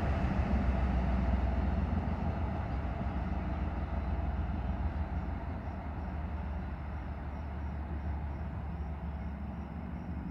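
Two BNSF diesel locomotives running light, without cars, moving away down the track: a low engine drone and wheel-on-rail noise that fade steadily as they recede.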